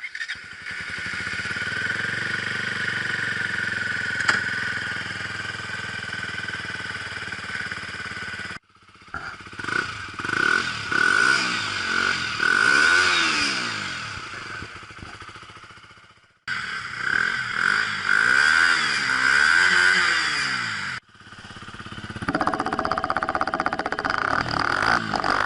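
KTM RC 125's single-cylinder four-stroke engine running steadily, then revved up and down several times, with a long climbing rev near the end. The sound comes in several short clips cut together.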